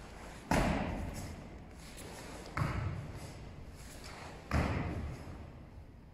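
Bare feet stamping onto foam tatami mats three times, about two seconds apart, during the stepping stamps of the Shotokan kata Heian Sandan; each is a heavy thud that rings briefly in the hall.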